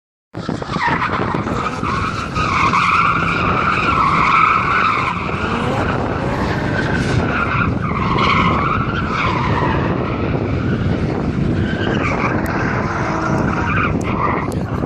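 BMW E30 Touring with a Toyota 1JZ straight-six swap drifting: tyres screeching in long squeals that waver in pitch, over the engine note.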